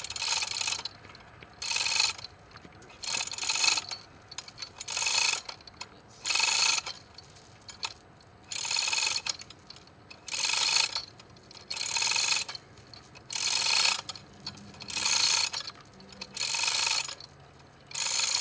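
Manual chain hoist hung from a tripod, its hand chain pulled in strokes. The chain and the hoist's ratchet clatter in a dozen short bursts, about one every one and a half seconds, as a heavy stone base is raised.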